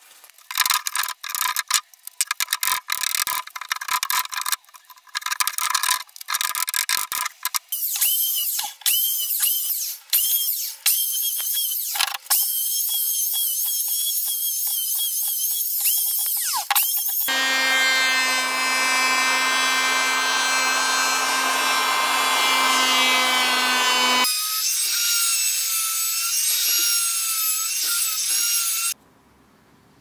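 Nails being pried out of pallet wood with a hammer claw, in short choppy bursts for the first dozen seconds. Then an electric hand planer runs steadily along a board, its pitch changing partway through, and cuts off abruptly near the end.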